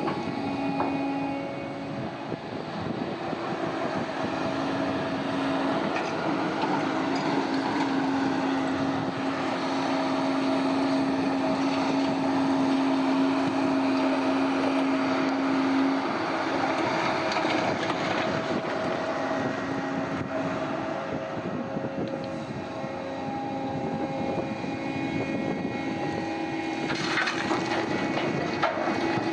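Heavy diesel earthmoving machinery running steadily, a continuous engine hum whose pitch shifts slightly as it works. A few sharp knocks sound near the end.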